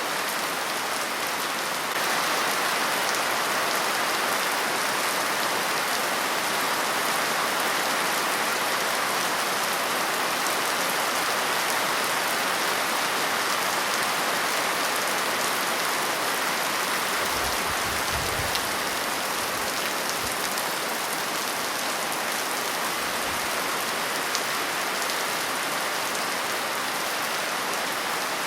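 Steady rain falling and pattering on a surface, an even continuous hiss that gets slightly louder about two seconds in.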